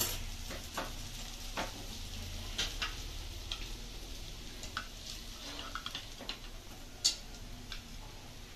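Slotted metal spatula scraping and tapping in a nonstick kadai as cooked semiya upma is scooped out into a small bowl. Irregular scrapes and light clinks, the sharpest a single clink about seven seconds in.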